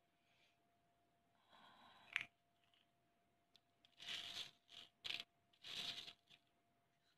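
Fingertips rubbing and scraping across a board dusted with crushed naphthalene (mothball) crystals: faint, short scratchy strokes, with one sharp click about two seconds in.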